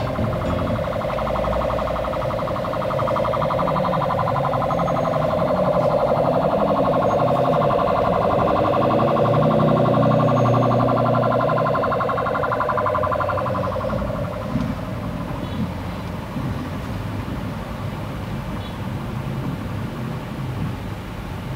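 Ambulance siren warbling rapidly as it comes up through the traffic, loudest about halfway through and then fading over the last several seconds, over the low rumble of idling traffic.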